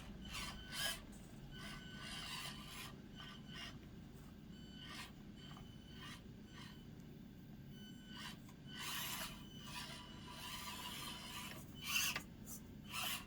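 Stock Axial SCX24 1/24-scale RC crawler driving over an obstacle course: a faint whine from its small electric motor and gears, with the tires and body rasping and scraping over the course surfaces in irregular bursts. The scraping is loudest about nine seconds in and again near the end.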